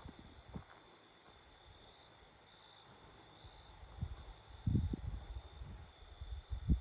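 Night insects chirping in a fast, even train of high pulses over a steady high drone. A few low thumps come near the end.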